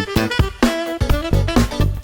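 Upbeat instrumental music with horn lines, guitar and a drum kit playing a steady beat.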